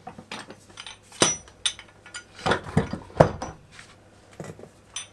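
Steel screw clamps being hung in a wooden wall holder, knocking against each other and the wood in a series of sharp metallic clanks and clicks.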